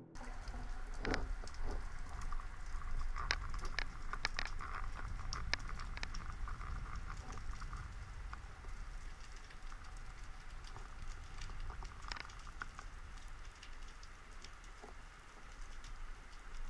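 Underwater ambience picked up by a diving camera: irregular sharp clicks and crackles over a faint steady hiss. The clicks come thickest in the first few seconds and again near the end.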